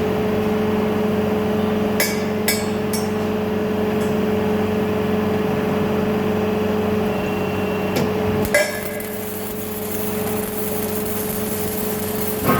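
Industrial machine running with a steady, even hum, with a quick run of three sharp metallic clinks a couple of seconds in and two more knocks about two-thirds of the way through, after which the hum drops a little.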